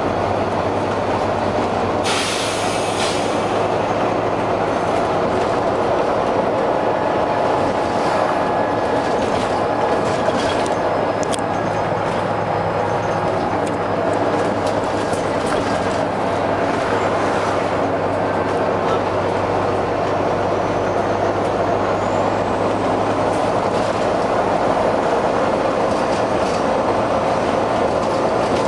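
Volvo B9TL double-decker bus's Volvo D9B six-cylinder diesel running under way, a steady loud drone with a steady hum. A short burst of air hiss comes about two seconds in.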